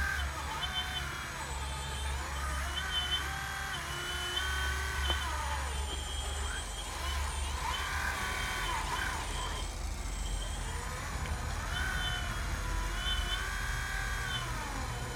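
Radio-controlled hydraulic scale excavator, a Hitachi Zaxis 460 model, at work: its hydraulic pump whines, rising, holding and falling in pitch again and again as the boom, arm and bucket move. A steady low hum runs underneath.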